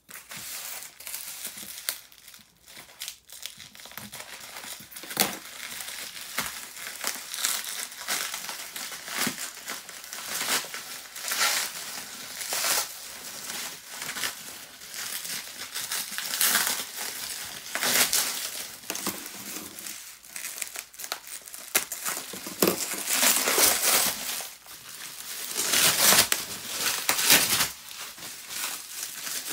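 Plastic bubble wrap crinkling and rustling as it is cut open with scissors and pulled apart by hand, in irregular louder and quieter spells.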